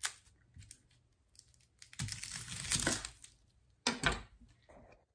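A yellow onion being cut with a chef's knife and peeled on a cutting board: about two seconds in, the dry papery skin crackles and tears for about a second, and near the end there are two sharp knocks of the knife on the board.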